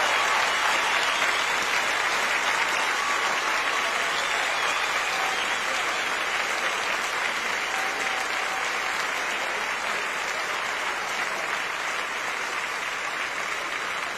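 Large stadium crowd applauding, a dense even patter of clapping that slowly dies down.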